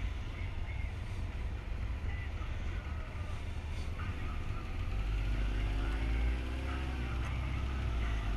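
Motorcycle engine running at low speed under a low rumble. About five seconds in, the engine note rises and grows louder as the bike picks up speed.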